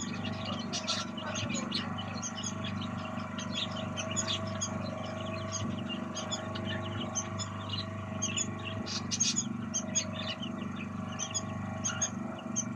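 Many small birds chirping in quick, overlapping calls, with a steady low hum underneath.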